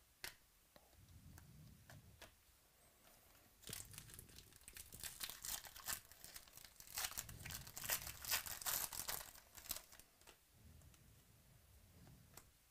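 Foil wrapper of a Panini Prizm football card pack being torn open by hand, with a burst of crinkling and tearing lasting several seconds from about a third of the way in. A few light taps of cards being handled come before and after it.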